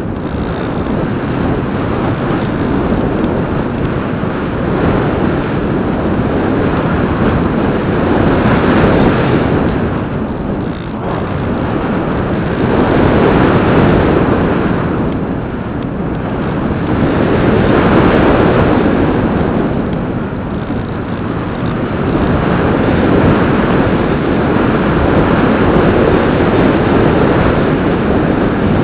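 In-flight noise of a Bixler 2 RC plane heard from its onboard camera: a loud, rough rushing of air and airframe that swells and eases every few seconds.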